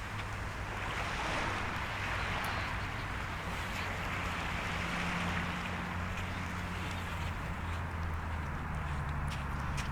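Surf washing on the shore with wind, over a low steady hum. A few sharp crackles come near the end.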